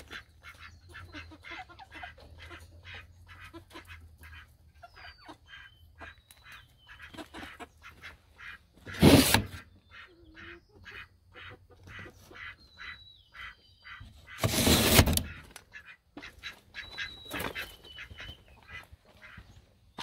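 Backyard chickens clucking in quick, short notes, with a few thin, high calls mixed in. Twice, about halfway through and again later, a loud brief rush of noise covers them.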